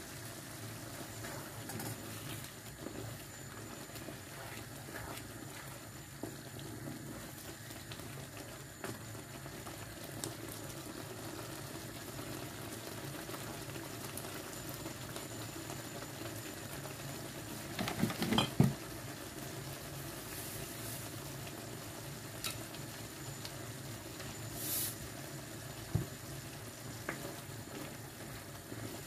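Tomato sauce simmering in a frying pan, a steady bubbling, with a short clatter about two-thirds of the way through.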